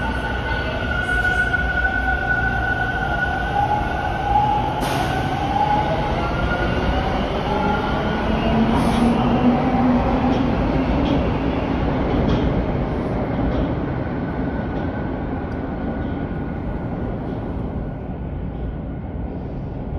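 Bombardier T1 subway train pulling out of the station: its electric traction motors whine, rising in pitch as it accelerates, over a steady rumble of wheels on rail. The sound builds to its loudest about halfway through, then fades as the train draws away.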